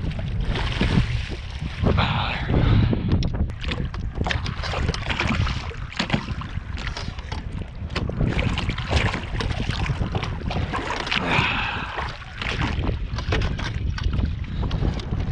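Wind buffeting the microphone and water slapping against a small fishing boat, with its outboard motor shut off, and many short knocks and clicks scattered through.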